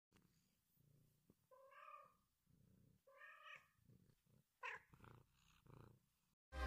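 Faint domestic cat sounds: soft low purring in short stretches, two meows, then a louder short call that falls in pitch a little past halfway. Loud music comes in at the very end.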